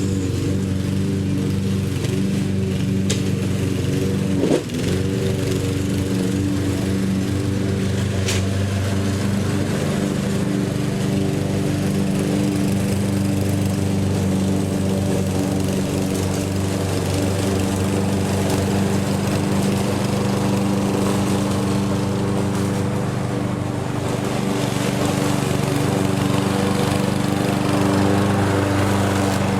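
Lawn mower engine running steadily at a constant pitch, with one short knock about four and a half seconds in.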